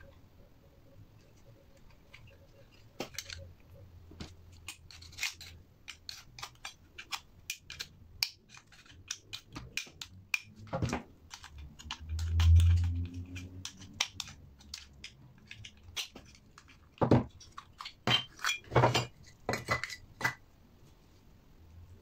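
Metal clicks and clinks from a small transformer being handled and worked at with needle-nose pliers, the pliers' steel jaws knocking and gripping on the transformer's metal frame. A short low thud comes about halfway, and the clicks are quickest and loudest in the last few seconds.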